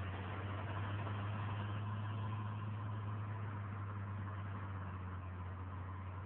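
Tractor diesel engine pulling a subsoiler through the soil, running under load with a steady low drone.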